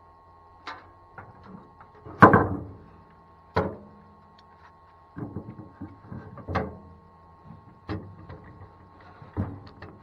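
Wooden boards and metal bar clamps being picked up and set down on a plank wagon bed: a string of separate knocks and clatters, the loudest about two seconds in.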